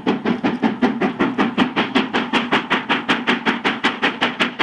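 Steam locomotive Lion chuffing as it runs: rapid, even exhaust beats at about five a second.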